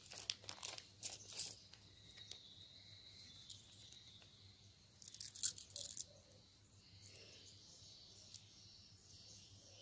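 Crinkling of a small plastic zip-lock bag as it is handled and opened. The rustling comes in short bursts in the first second and a half, and again about five seconds in.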